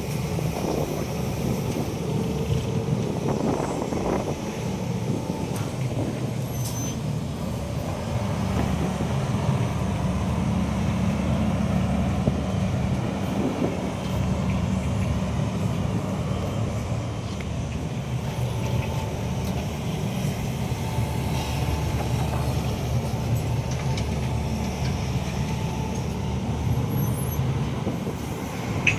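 Diesel engine of a hydraulic excavator running steadily with a low drone.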